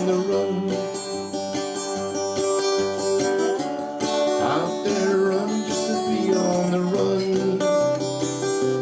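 Acoustic guitar music, strummed, playing on after the last sung line of a folk song: the instrumental close of a live performance.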